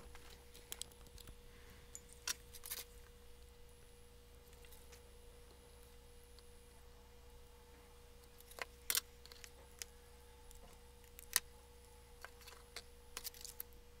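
Scattered light clicks and taps from a stripboard and soldering iron being handled while wire jumpers are soldered on, over a faint steady hum; the sharpest clicks come about nine and eleven seconds in.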